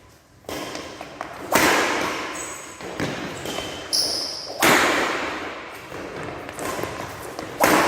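Badminton rally with a nylon shuttlecock: about five sharp racket hits, roughly one every one and a half seconds, each ringing out in a long hall echo. A few short high squeaks come between the hits.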